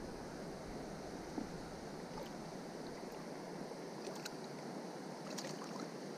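Shallow stream running over stones: a steady rush of water, with a few faint sharp ticks about four seconds in and again near the end.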